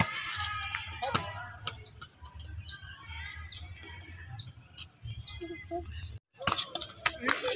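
A small bird chirping over and over, short falling high notes about two a second, over a low steady hum.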